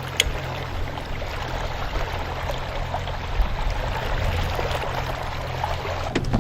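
Motorboat underway: a steady low engine hum under the rush and splash of water along the hull, with a single click just after the start.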